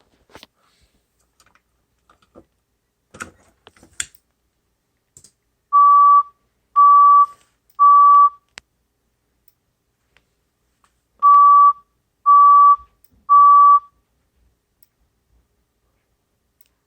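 System Sensor SP101W24LO speaker strobe sounding the fire evacuation tone: steady mid-pitched beeps in groups of three, heard twice, the temporal-three pattern that signals a fire evacuation. A few faint clicks come before the first beeps.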